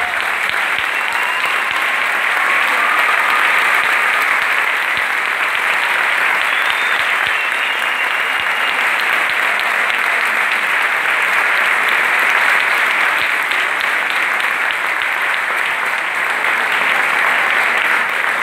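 Large audience and people on stage applauding steadily, a sustained round of clapping.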